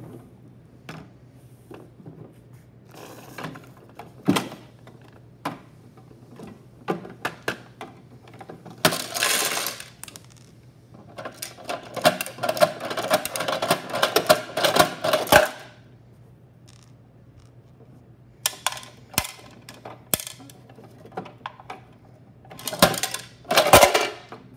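Plastic clicks, knocks and clatter of a Bruder toy garbage truck worked by hand, with several longer rattling stretches as a lifted bin tips small pieces of toy trash into the truck body.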